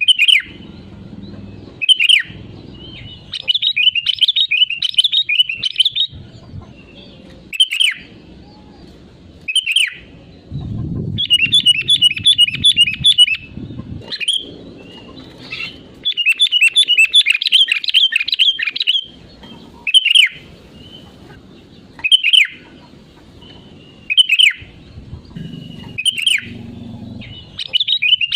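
Sooty-headed bulbul singing: short, loud, falling whistled phrases every couple of seconds, broken up by several longer runs of fast chattering notes lasting two to three seconds each.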